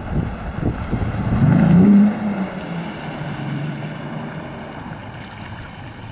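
Yamaha outboard motor on a small speedboat being throttled up: its pitch rises about a second in and it is loudest at around two seconds. It then runs at a steadier, lower pitch and grows gradually quieter.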